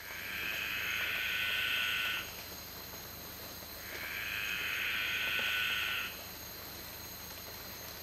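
Night-time tropical rainforest chorus: a steady high-pitched drone with two long calls of about two seconds each, the first at the start and the second about four seconds in.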